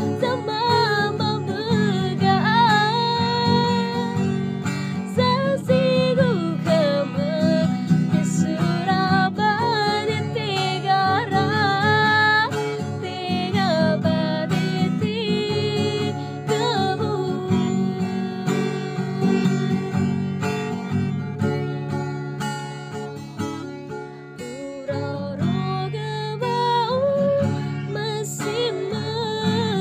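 A woman singing to her own acoustic guitar accompaniment. The voice drops out for a stretch in the middle, leaving the guitar playing on its own, and comes back near the end.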